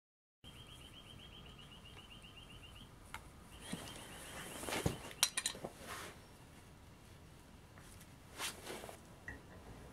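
Ratchet wrench clicking in two quick, even runs as the bolts holding a brake disc to a wheel hub are tightened, followed by a few sharp metallic clinks and knocks.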